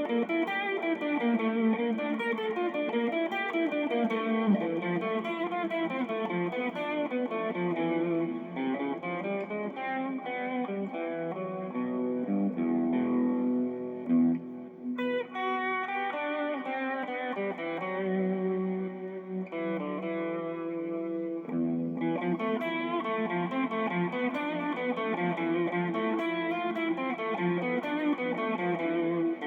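Electric guitar played through a 4x12 speaker cabinet in a sound test: a continuous run of picked notes and chords, with a brief break and a change of phrase about halfway through. The tone is dark, with nothing above the upper midrange.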